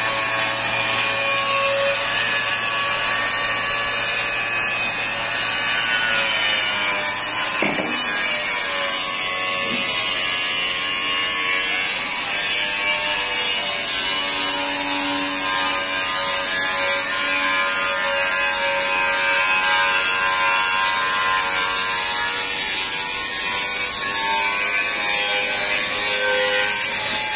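Electric angle grinder grinding a steel I-beam: a steady high-pitched motor whine with the hiss of the disc on metal, the pitch shifting a little as the disc bears on the steel.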